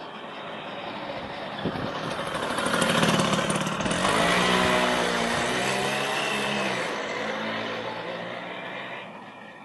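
Suzuki FZ50 moped's small two-stroke single-cylinder engine running. It grows louder to a peak about three seconds in, with its pitch shifting, then fades away toward the end.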